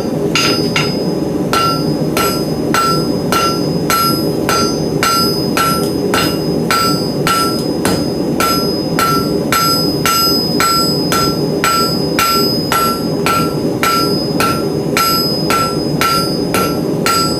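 Hand hammer striking a hot 3/8 in round steel bar on an anvil, drawing out a square taper: even blows about two a second, each with a short bright ring, over a steady low hum.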